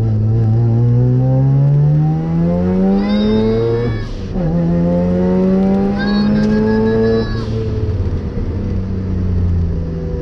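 Race car engine heard from inside the cabin, accelerating hard on track. Its pitch climbs steadily, drops sharply with an upshift about four seconds in, climbs again, then falls away as the throttle is lifted about seven seconds in.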